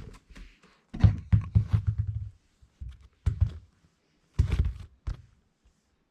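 A run of dull thumps and knocks, several in quick succession and then a few scattered ones, with the boomy sound of a small room.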